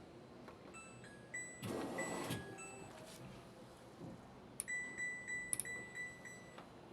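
Ramtons RW/147 washing machine's electronic control panel beeping: a few short high beeps about a second in, a brief burst of noise around two seconds in, then a quick run of about six short beeps near the end.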